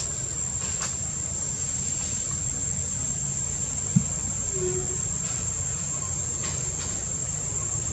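Steady high-pitched insect drone over a low steady rumble, with one short thump about four seconds in.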